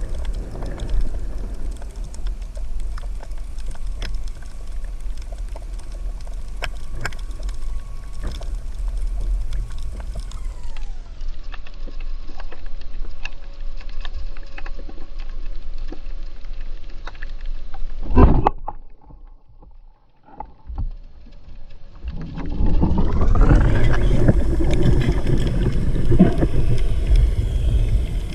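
Muffled underwater water noise with a low rumble, picked up by a camera in its housing. A faint steady hum drops in pitch about a third of the way through. The sound nearly drops out for a couple of seconds past the middle, then swells back louder.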